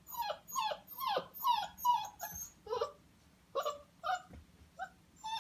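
A 5-week-old Newfypoo puppy whimpering in a quick run of short, falling cries, about two a second. After about three seconds the cries come more sparsely.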